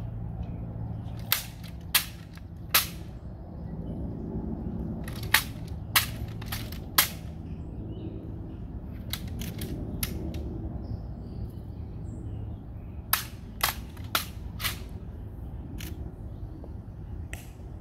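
Sharp clicks or knocks at irregular intervals, some in quick clusters, over a steady low rumble.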